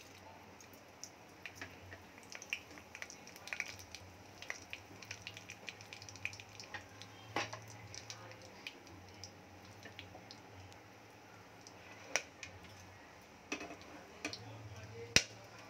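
Whole spices (cinnamon, bay leaves, cardamom, cloves, fennel seeds and dried red chillies) frying in hot oil in a pressure cooker: a faint sizzle with scattered small crackles and pops, the sharpest one near the end.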